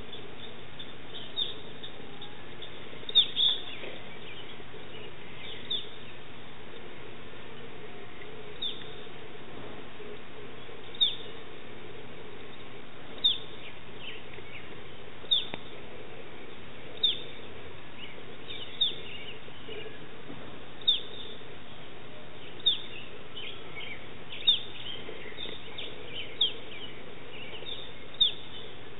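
Prairie chicken calling with single short, sharp chirps that slide downward. The chirps come irregularly at first, then about every two seconds from about ten seconds in.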